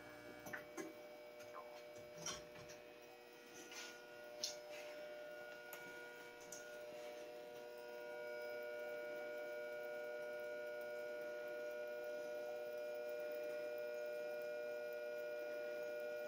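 Wurlitzer 1015 jukebox between records: a few faint clicks and knocks in the first few seconds, then from about eight seconds in a steady faint hum.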